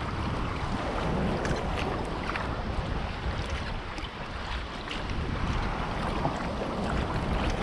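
Wind buffeting the microphone over choppy sea water lapping and splashing around a kayak, with small splashes scattered throughout.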